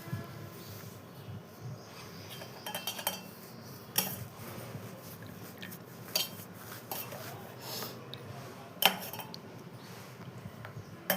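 Metal cutlery clinking against a kitchen vessel: a handful of sharp clinks spaced a second or two apart, with a small cluster about three seconds in.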